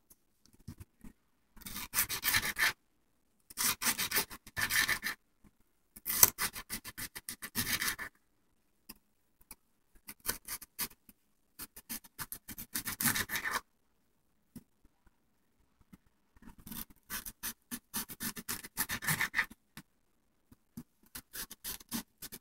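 Kitchen knife dicing green bell pepper on a plastic cutting board: runs of rapid knife strikes, a second or two each, with short pauses between.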